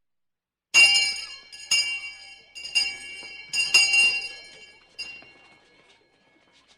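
Hand fire bell struck about five times, roughly a second apart, each stroke ringing bright and high before the last one fades away near the end.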